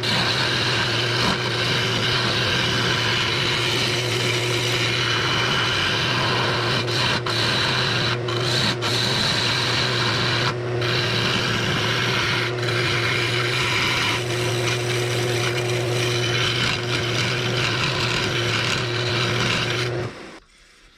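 Wood lathe running while a turning tool cuts into a spinning 4x4 pine blank, a steady scraping cut over the lathe's constant low motor hum. It stops suddenly near the end.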